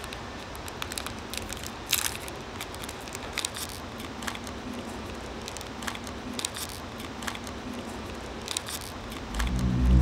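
A snack-bar wrapper crinkling and crackling as it is torn open by hand, in irregular small crackles with a few sharper rips. Near the end a loud low droning hum with several steady tones sets in.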